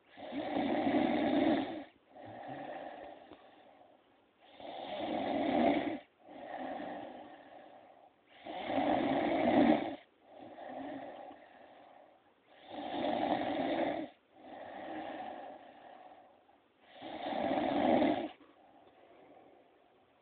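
A sleeping woman snoring with a regular rhythm: five loud rasping snores about four seconds apart, each followed by a softer, longer rasp as she breathes out.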